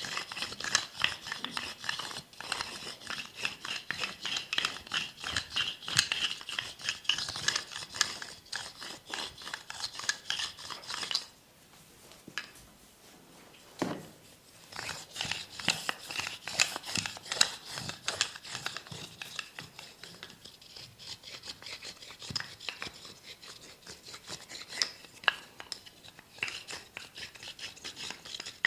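Massage strokes: hands rubbing and scratching over skin and hair, making a dense run of small crackly friction sounds. They stop for about three seconds a little before the middle, with one soft knock, then start again.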